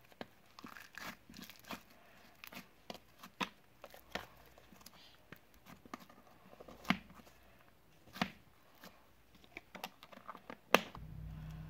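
Hands squishing and stretching slime, giving irregular wet clicks and pops. A low steady hum comes in near the end.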